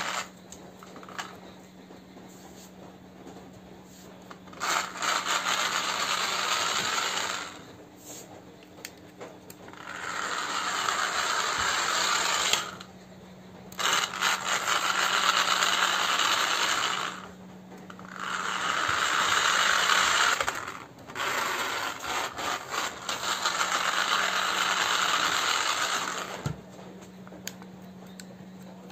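Small electric motor and plastic gears of a wired remote-control toy car whirring and rattling as it drives over a hard floor. It runs in five spurts of about two to four seconds each, with short pauses between.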